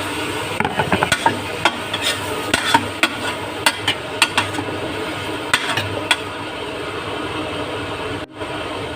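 Chicken pieces sizzling as they sauté in a frying pan with vegetables in margarine, stirred with a spatula that clicks and scrapes against the pan, most often over the first six seconds.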